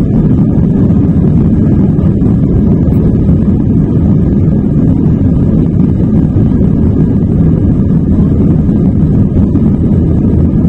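Steady low rumble in the cabin of an Airbus A321 rolling along a wet runway: the jet engines and the wheels on the runway.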